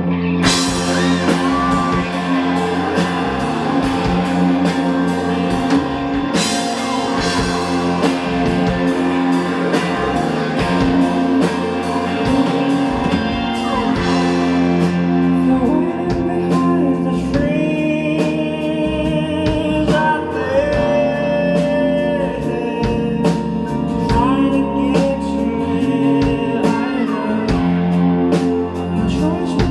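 Live rock band playing, with a drum kit keeping a steady beat and guitars, and a singer's voice over them that is clearest in the second half. Cymbal crashes come near the start and again about six seconds in.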